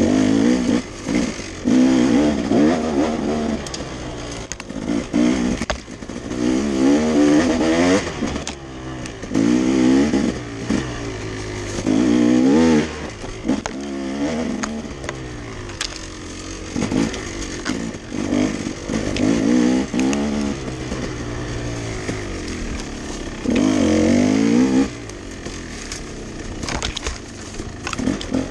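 Dirt bike engine revving up and down as the rider works the throttle, in repeated loud surges every second or two with quieter lulls between.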